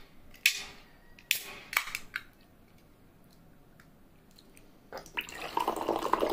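A few short sharp clicks and hisses in the first two seconds. Then, about five seconds in, a drink starts pouring from a can into a glass, the pour growing louder.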